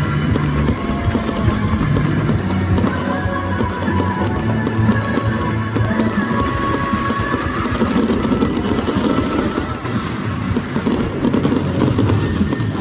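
Music playing loudly with fireworks bursting through it, the bangs coming thicker in the last few seconds.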